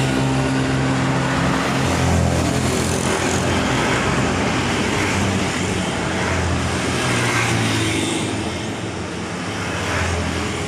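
Steady road traffic, with engines passing one after another and their hum rising and falling under a constant rush of noise.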